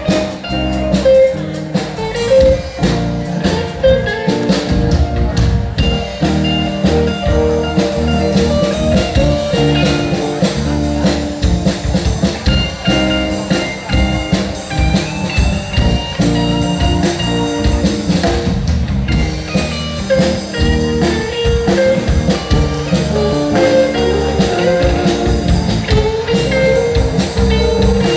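Live rock band playing an instrumental passage with guitar, bass, keyboard and drum kit.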